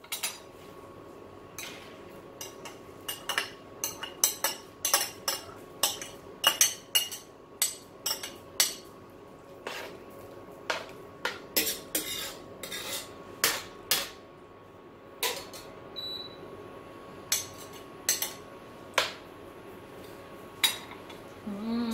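Kitchen utensils clinking and knocking against a bowl and cooking pot in irregular taps as young coconut meat is spooned into the simmering soup, the taps thinning out over the last few seconds, over a faint steady hum.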